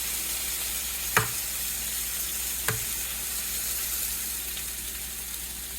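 Bologna frying in a hot pan, a steady sizzle, with two sharp knocks about a second and a half apart.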